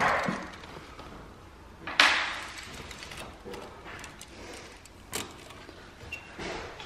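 A steel tape measure being hooked and slid on tongue-and-groove pine boards: a few sharp clicks and knocks with short scrapes, the loudest about two seconds in.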